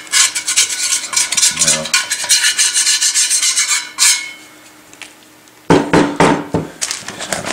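Old work knife scraping wet asbestos coating off an Olympia Cremina espresso machine boiler: a quick run of rasping strokes for about four seconds. After a short lull, a few heavier scrapes and knocks come near the end.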